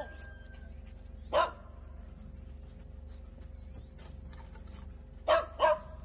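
A dog barking: one bark about a second in, then two quick barks near the end.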